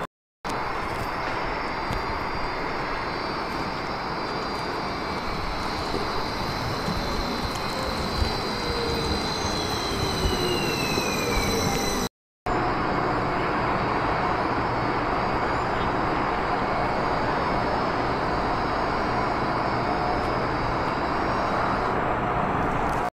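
Electric trains running through a station: a steady rolling noise with high, steady whining tones. Around ten to twelve seconds in, a whine falls in pitch. The sound breaks off for a moment near the middle.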